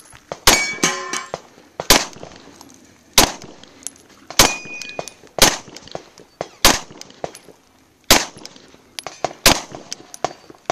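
Glock 34 9mm pistol fired at a slow, deliberate pace, about seven shots one to two seconds apart. Steel plate targets ring with a metallic clang on hits, most clearly after the first shot and again near the middle.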